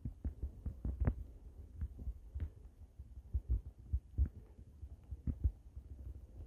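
Wind buffeting a phone's microphone: a low, uneven rumble broken by irregular pops and thumps.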